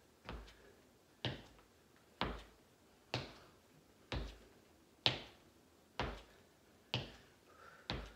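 Footsteps on a hardwood floor during a hamstring-curl step: a regular thud about once a second as each foot comes down in turn.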